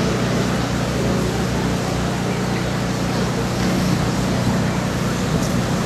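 Steady, even outdoor background noise with a low hum beneath it and no distinct events.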